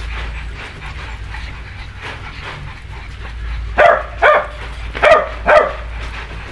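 Dog barking: four short, sharp barks in two quick pairs, starting about four seconds in.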